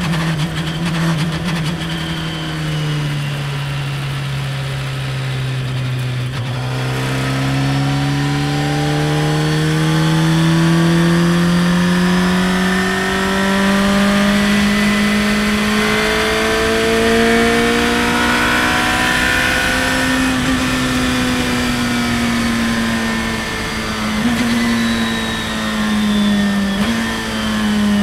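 Radical race car's engine heard onboard from the open cockpit. It eases off briefly, then pulls with a long steadily rising pitch in fifth gear down a straight, before lifting off and blipping twice as the driver downshifts to third under braking near the end.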